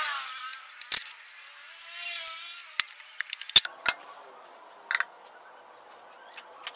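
A handful of sharp metallic clicks and knocks as parts of a scooter's CVT housing are handled and taken off by hand, the loudest about three and a half seconds in. Two short high-pitched warbling sounds come near the start and about two seconds in.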